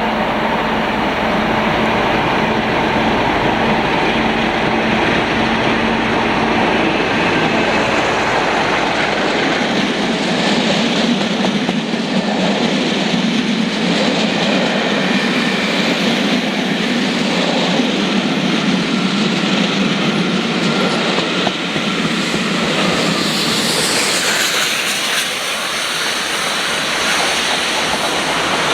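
A train running along the track, a loud steady rumble with the clatter of wheels over the rails and a brief high wheel squeal near the end.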